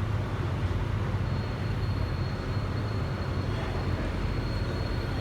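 Iyo Railway's Botchan Ressha tourist train running, a steady low rumble, with a thin high steady tone joining about a second in.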